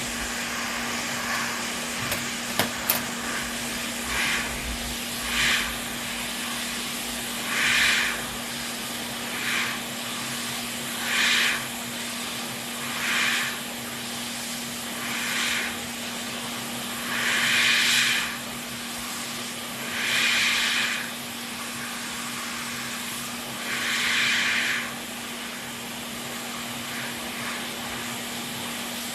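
Electronics soldering and rework equipment on a repair bench: a steady hum and hiss, with about a dozen short hissing bursts, roughly one every two seconds, and a few sharp clicks near the start.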